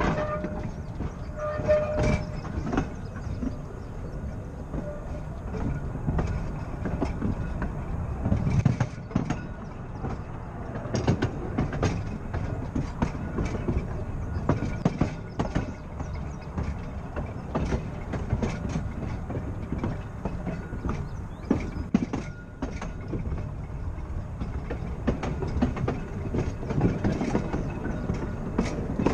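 Blackpool Boat tram car 606 running along the track: a steady rumble of steel wheels on the rails, broken by frequent irregular clicks and knocks.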